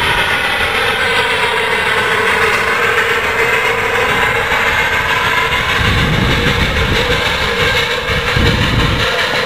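Small quarter-scale steam locomotive running on a miniature railway, a steady sound whose pitch drifts slowly down and back up, with low rumbles coming and going in the last few seconds.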